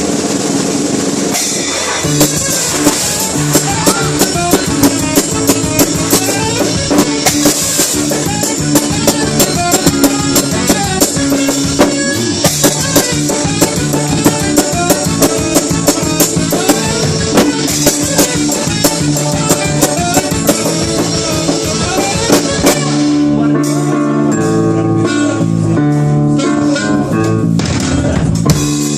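A live band playing an instrumental break, with drum kit and guitar. Steady drum hits run through most of it; about three quarters of the way through the drums thin out and the playing becomes sparser.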